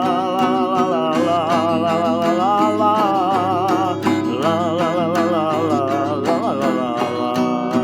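Music: a wordless passage of the song, a lead melody with a wide vibrato over sustained chords and guitar, with a steady beat.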